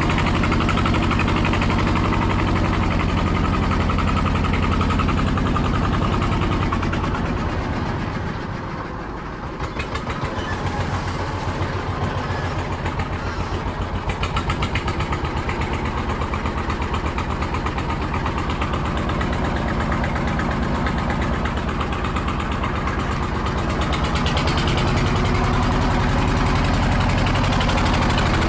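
An engine running steadily, easing off about eight seconds in and then picking up again.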